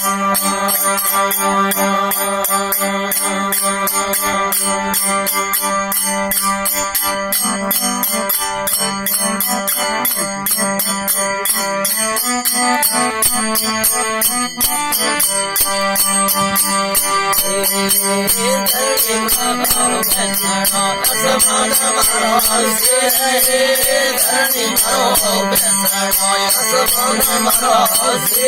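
Marwari devotional folk music with no singing: a steady drone under a fast, even beat of jingling percussion, with a wavering melody line coming in over it about two-thirds of the way through.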